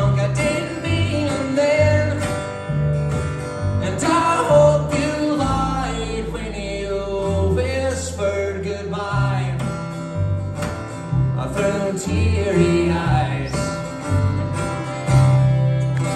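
Live acoustic country string band playing: fiddle, strummed acoustic guitar and a plucked upright bass walking through low notes.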